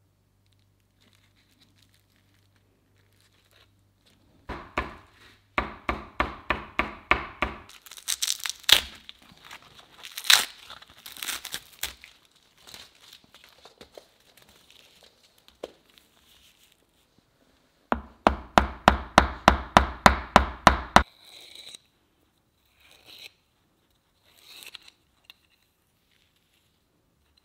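Dried sinew being worked by hand into fibres: two runs of quick, even strokes, about four or five a second, with crackling and tearing of fibres between them.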